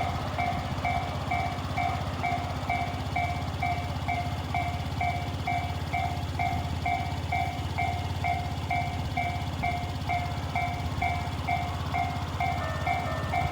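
Japanese level crossing warning bell ringing, an electronic ding repeating about two to three times a second over a steady low rumble. Near the end a second alarm with a different pitch joins in.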